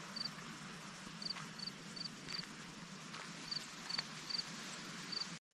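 Short, high chirps repeated over and over at an uneven pace, some in quick pairs, like the call notes of a small bird, over a steady background hiss. The sound cuts off suddenly near the end.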